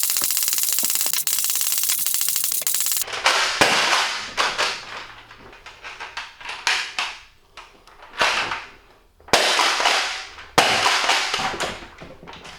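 Nerf Rival Apollo spring-powered blaster being worked and fired over and over: first a fast, even run of mechanical clicks, then single sharp cracks spaced roughly a second apart, the loudest near the end.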